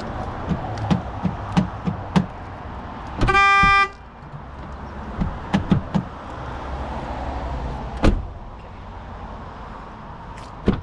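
Fiat 500 door latch and lock mechanism being worked, giving a series of sharp clicks and a heavier clunk about eight seconds in. A short car-horn toot sounds about three seconds in.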